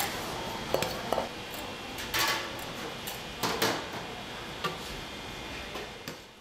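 Metal ladles clanking and scraping against a stainless steel pot and aluminium trays as sauced fried pork is scooped and portioned, a scattered handful of clanks over steady kitchen background noise that fades out near the end.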